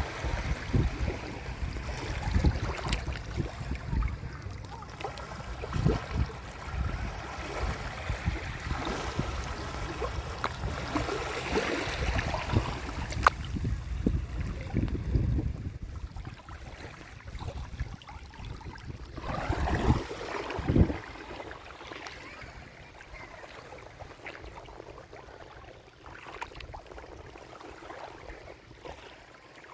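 Sea waves washing onto the shore in irregular surges, the strongest about twelve to fifteen seconds in and again around twenty seconds, then settling into a softer wash.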